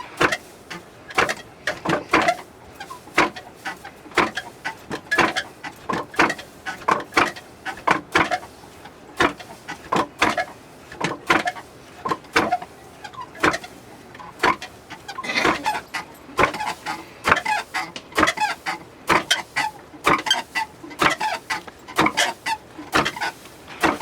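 Barley being milled by hand with traditional tools: a steady, irregular run of short knocks, one or two a second.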